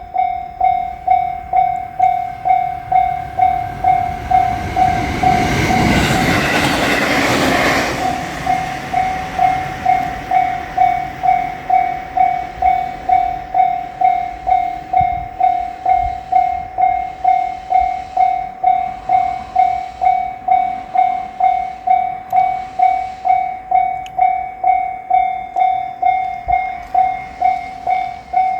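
Japanese railway level-crossing warning bell dinging a single tone over and over at a steady rate. A train runs through the crossing about five to eight seconds in: its noise swells over the bell and cuts off quickly, and the bell goes on dinging.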